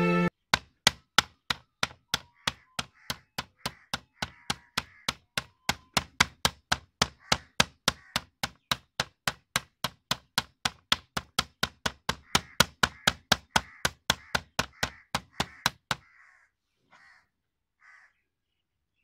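A wooden spoon beating a raw chicken breast flat on a plastic cutting board: a fast, even run of dull knocks, about three a second, which stops near the end.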